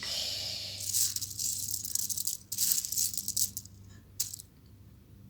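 Small loose plastic letter-board letters rattling together as they are handled, in a few bursts, then a single sharp click about four seconds in.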